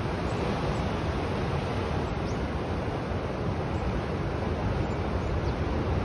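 Rough sea surf breaking without pause, heard as a steady, deep wash of noise with no single wave standing out, and some wind on the microphone.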